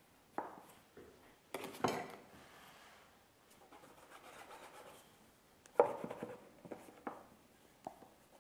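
Plastic dough scraper scraping and knocking against a plastic dough-proofing box as dough balls are lifted out: several short, sharp scrapes and knocks, with a soft rubbing sound in between.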